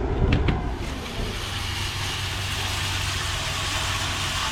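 Air-conditioning equipment running: a steady hum with an even rush of air that comes up about a second in and holds.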